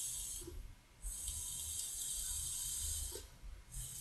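Airy hissing of someone vaping a Smoktech Pyrex Mini e-cigarette cartomizer tank, drawing on it and blowing out the vapour. There are three stretches of hiss: one fades about half a second in, a long one runs from about a second in to just past three seconds, and another starts near the end.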